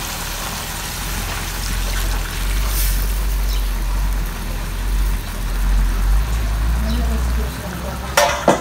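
Coconut milk from the second pressing being poured into a pot of taro, a trickling pour under a steady low rumble, with a few sharp clanks near the end.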